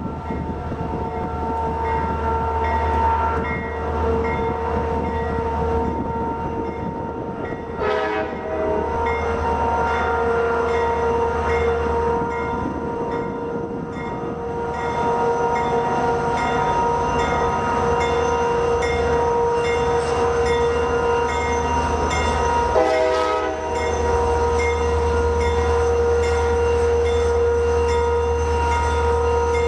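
Norfolk Southern EMD SD40-2 diesel locomotive's multi-note air horn, held in long steady blasts as the train approaches, with two brief breaks about eight seconds in and again a little past twenty seconds.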